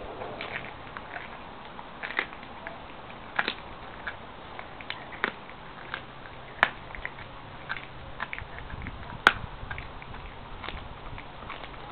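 Siberian husky chewing a whole raw chicken: irregular crunches and sharp cracks of teeth on bone and flesh, with a louder snap about nine seconds in.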